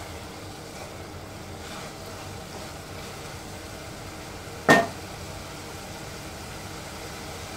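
A steady low sizzle of a prawn and cluster-bean curry cooking down on a high gas flame as its last moisture dries off. About four and a half seconds in there is a single sharp knock with a short metallic ring: a wooden spatula tapped against the rim of the aluminium pot.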